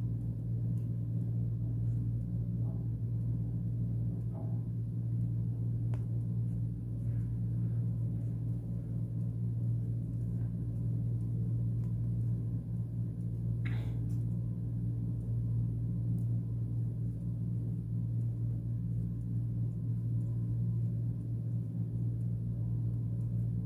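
Steady low hum, with a few faint clicks, one about six seconds in and a sharper one about fourteen seconds in.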